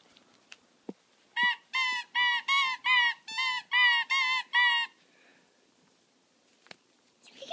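Squeaker in a plush Kong dog toy squeezed over and over: about nine short honking squeaks, about three a second, starting about a second and a half in and stopping about two seconds before the end.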